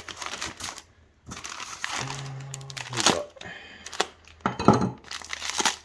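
Brown kraft packing paper crinkling and rustling as a paper-wrapped bayonet is lifted out of a cardboard box, with short clicks and knocks of handling. A steady hummed tone lasts about a second, roughly two seconds in.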